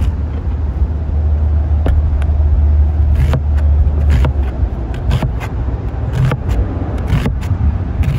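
A wide cleaver-style knife chopping an onion on a plastic cutting board: irregular sharp knocks about once a second, over a steady low rumble that eases off about halfway through.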